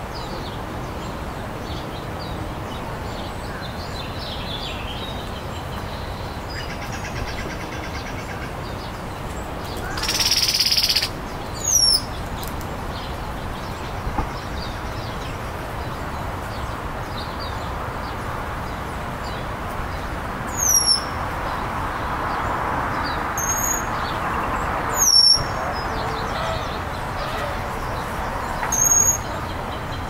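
Songbird calls: several short, thin, high notes, each sliding downward, spaced a few seconds apart over a steady background hiss. A brief rush of noise, about a second long, comes about ten seconds in.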